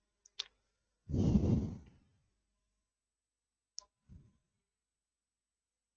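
A man's breathy sigh close to a headset microphone, about a second long, with a few faint clicks before and after it.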